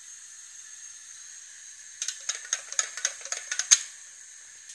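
A quick run of about a dozen light clicks and knocks from a rolling pin working a puri on a wooden board, starting about two seconds in, with the last knock the loudest. A faint steady hiss lies under it.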